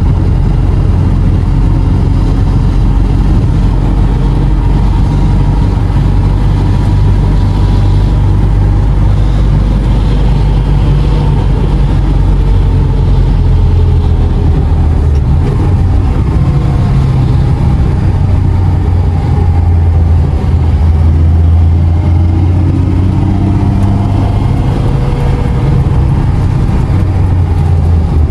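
Lada 2101/21011 four-cylinder engine running under way, heard from inside the cabin with road and tyre noise. The engine note rises and falls with the throttle.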